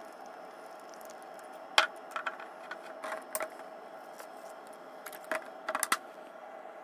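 A handful of sharp clinks and taps of glass and plastic containers against a plastic tub while liquid is poured into it. The loudest clink comes a little under two seconds in, with small clusters around three and a half and six seconds, over a steady low hum.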